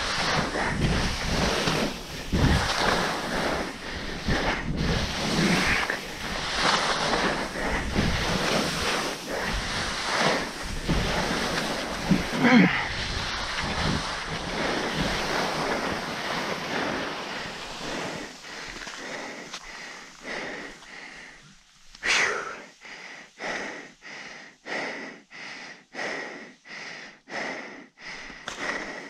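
Skis scraping and hissing down a steep chute of spring snow, with wind buffeting the microphone. The skiing stops about 22 seconds in. After that comes hard, rhythmic breathing, roughly one breath a second.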